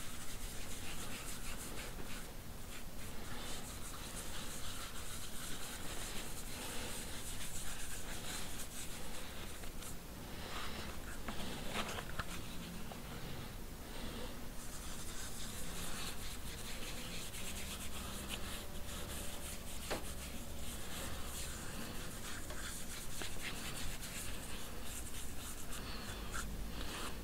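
Wool dauber rubbing leather dye onto a leather sling piece: a soft, scratchy rubbing of many short, uneven strokes, with the leather handled between them.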